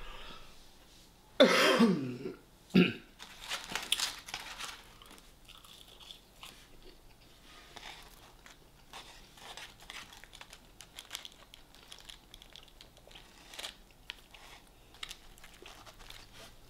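A person eating crispy fried chicken wings close to the microphone: chewing with crunching of the coating. A loud cough comes about a second and a half in, then a shorter one, and the crunching is loudest just after, then it fades to quieter chewing.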